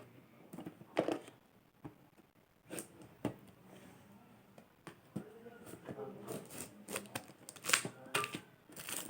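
Cardboard box packaging being handled and opened by hand: scattered light clicks, scrapes and rustles that come more often in the last few seconds.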